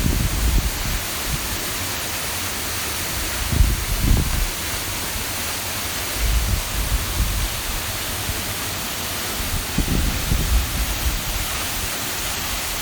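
Waterfall rushing with a steady, even roar. Low rumbles come through a few times, about 4, 6.5 and 10 seconds in.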